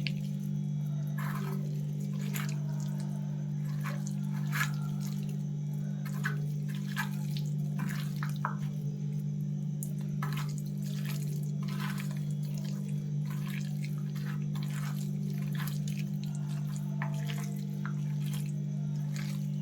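Wet squelching and clicking of chicken pieces being mixed by hand in a sticky marinade of gram flour, maida and spices, over a steady low hum.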